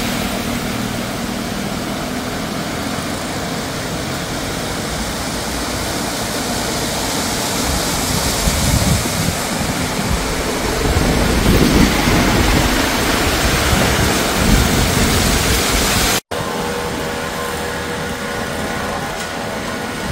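Heavy rain, a steady loud hiss that swells now and then. About 16 s in the sound cuts out for an instant, and after that a steady low hum runs under the rain.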